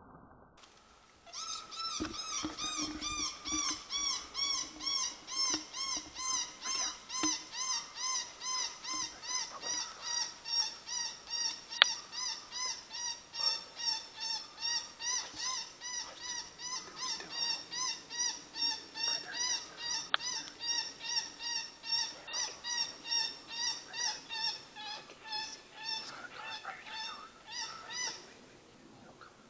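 Electronic predator call playing a whining distress cry over and over, about two to three short arching cries a second, dropping slightly in pitch over the first few seconds. One sharp click comes about twelve seconds in.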